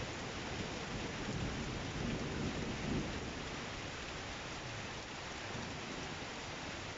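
Steady rain falling in a thunderstorm, with a low rumble of thunder under the rain's even hiss.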